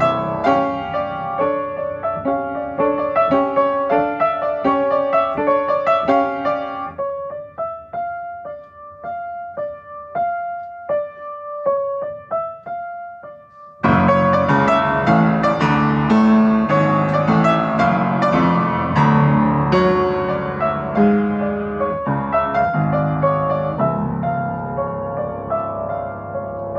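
Solo piano improvisation. It opens with quick repeated chords that thin out into sparse single notes. About halfway through, the sound cuts suddenly to loud, dense playing with deep bass notes.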